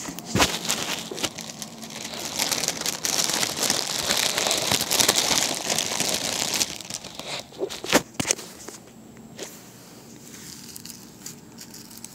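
Small plastic bags crinkling as they are handled, dense and loud for the first six or seven seconds, then two sharp clicks about eight seconds in and lighter rustling after.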